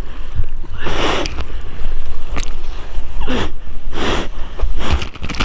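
Seawater splashing and rushing around a waterproof action camera held at the surface while bodyboarding through breaking surf, in short splashy bursts about a second in and again three times between three and five seconds in, over a low rumble of water and wind on the microphone.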